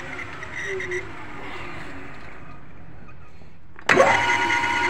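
Electric motor of the machine that spins a reground motorcycle gearbox shaft, switched on abruptly about four seconds in and then running with a steady whine while the shaft turns for a dial-indicator runout check. Before that, only a quiet low hum.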